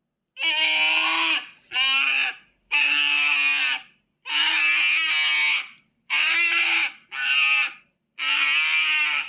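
A series of about seven high, wavering, bleat-like cries, each about a second long, with short silent gaps between them.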